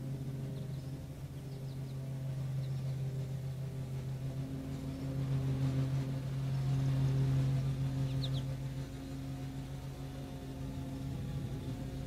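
A steady low machine hum, like a motor or engine running, grows somewhat louder in the middle. A couple of faint, short high bird chirps come through, one near the middle and one a little after.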